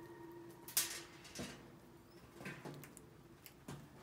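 A few short, scattered clicks and knocks from chinchillas nibbling lupin seeds out of a hand, the sharpest about a second in.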